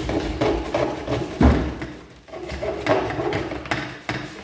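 White plastic electrical conduit being handled and worked on a wooden table: irregular knocks and scrapes, with a heavy thud about a second and a half in.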